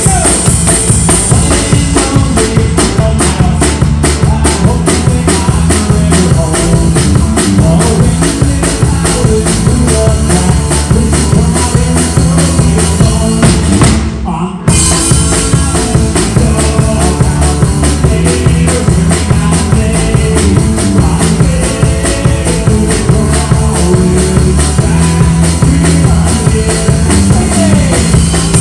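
Live rock band playing loudly, led by a steady drum-kit beat under guitars, with a brief stop of about half a second midway before the band comes back in.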